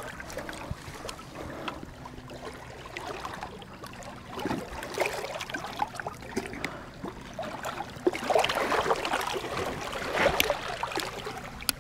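Shallow water sloshing and splashing against rocks as a large hooked ray moves at the water's edge, uneven and busier in the second half, with a few small sharp clicks.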